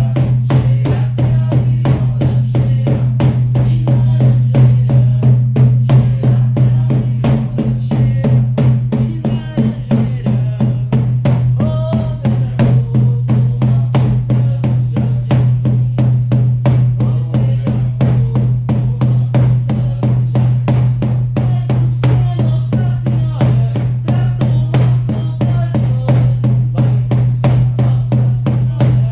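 Shamanic frame drums beaten in a fast, steady pulse of about four strokes a second, with a deep ringing drone sustained under the beats.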